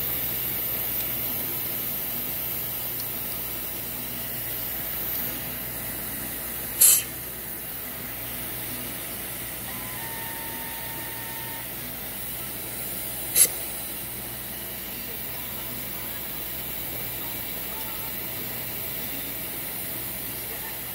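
Compressed air hissing steadily from the pneumatic indexer's airline, with two short, loud blasts of air, about seven and thirteen seconds in.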